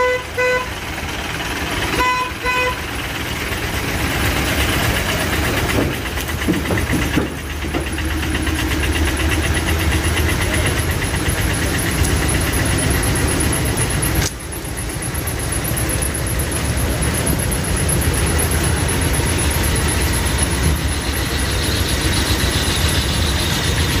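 A vehicle horn honks twice in short blasts near the start, about two seconds apart. Truck engines idle steadily in a queue of stopped vehicles for the rest.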